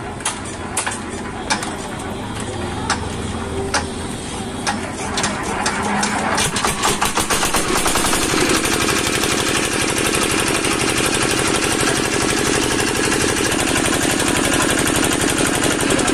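Single-cylinder diesel engine of a new 8 hp water-pump set starting: slow, spaced knocks that come faster and faster over a few seconds until, about eight seconds in, it runs steadily at speed.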